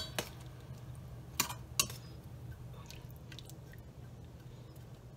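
Metal spatula knocking lightly against a stainless-steel pot as fish pieces are turned in a simmering curry sauce: a few sharp clicks, two close together about a second and a half in, then fainter ones, over a low steady hum.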